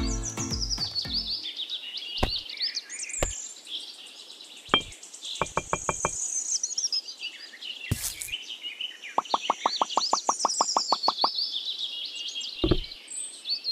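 Small birds chirping and twittering, with scattered sharp knocks and clicks, among them a quick run of clicks about two-thirds of the way through.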